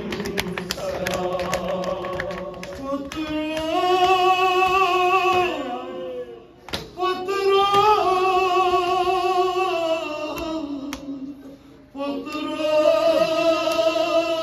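A male reciter chants a nauha, a Shia lament, through a microphone in three long, drawn-out phrases with brief breaks between them. A quick run of sharp hand slaps on the chest comes in the first couple of seconds.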